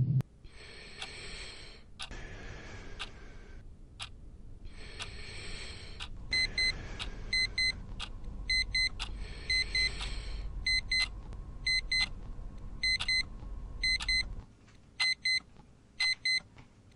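Cartoon digital alarm clock going off: short, high double beeps repeating from about six seconds in, over regular clicks about once a second. Earlier there are three long hissing swells, and a low rumble underneath stops near the end.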